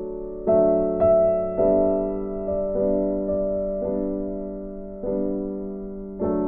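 Slow, gentle piano music, chords struck about once a second and left to ring and fade.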